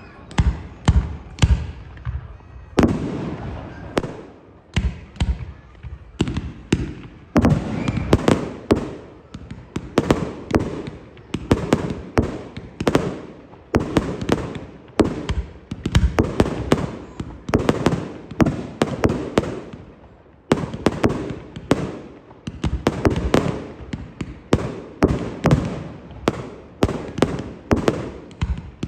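Aerial fireworks display: shells bursting in quick succession, several booms a second, each with a short rumbling echo, with no let-up.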